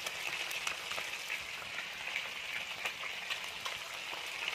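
Trout pieces frying in hot oil in a pan over a wood fire: a steady sizzle with scattered pops.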